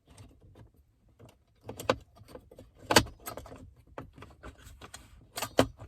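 Sharp plastic-and-metal clicks and knocks as a metal hinge piece is pressed onto the tabs of a car's center console lid to snap it in place, the loudest click about three seconds in and two more close together near the end.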